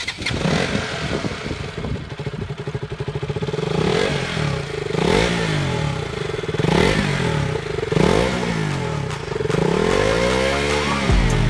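KTM motorcycle engines revving, the pitch rising and falling again and again about every one to two seconds.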